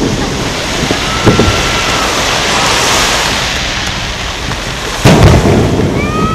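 Aerial firework shells bursting: a lighter bang about a second in and a loud, deep boom about five seconds in, with a steady rumble and hiss between them.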